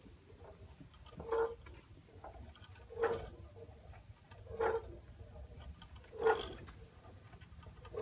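Hand-cranked automaton mechanism giving a short, pitched squeak about every second and a half as its crank is turned.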